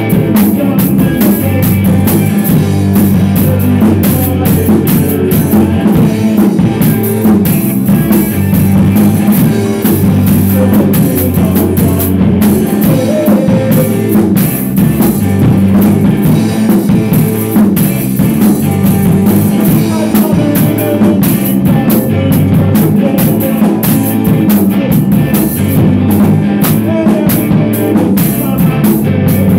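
A rock band playing live, with electric guitar over a drum kit keeping a steady beat, loud and unbroken.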